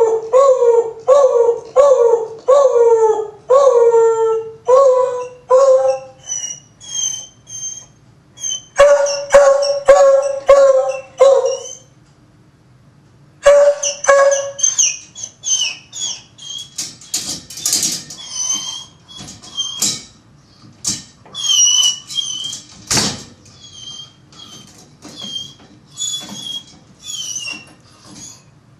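A dog vocalising in short, repeated calls that fall in pitch, about two a second, followed by a long run of high-pitched squeaks.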